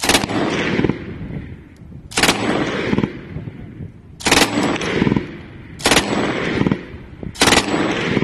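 Belt-fed machine gun firing five short bursts, one every second and a half to two seconds. Each burst is a quick rattle of rounds followed by a rolling echo.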